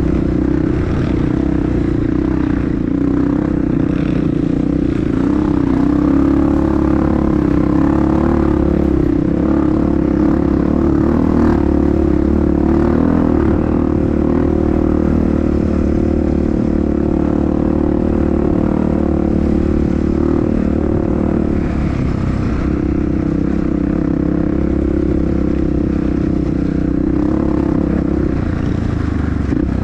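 Honda CRF dirt bike engine running at a fairly steady speed while riding, a continuous drone with little change in revs.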